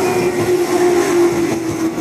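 Keihan 8000-series electric train passing close by, its cars rolling past with a steady whine that slowly falls in pitch.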